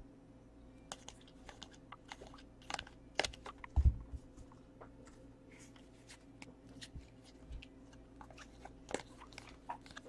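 A stack of 2015 Topps Chrome football cards being flipped through by hand: irregular soft clicks and scrapes of card edges sliding over one another, with a dull thump about four seconds in.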